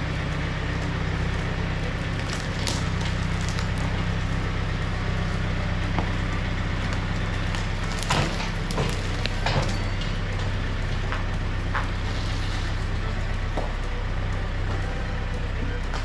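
Tractor engine running steadily, with scattered knocks and clatter from about 8 to 10 seconds in.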